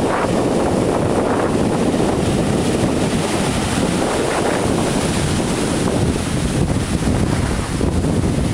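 Ocean surf breaking and washing through the shallows, a loud, steady rush, with wind buffeting the microphone.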